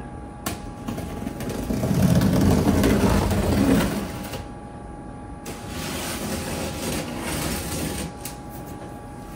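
Box cutter slicing through packing tape and scraping along the top seams of a large cardboard shipping box: a rasping cut, loudest from about two to four seconds in, then a quieter stretch of cutting.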